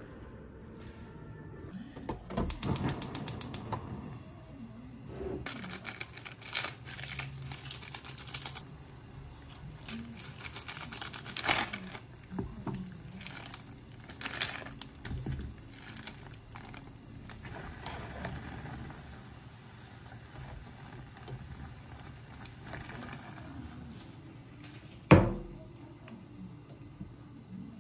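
Cooking noises: irregular rustling, clicks and clatter as instant noodles are cooked in a pot. Near the end comes one sharp, loud click as a gas stove burner is lit.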